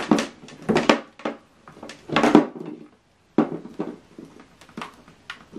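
An optical audio cable being pulled from the back of a TV and handled: a series of knocks, clicks and rustles as the cable and its plug move about. The sound drops out completely for a moment about three seconds in.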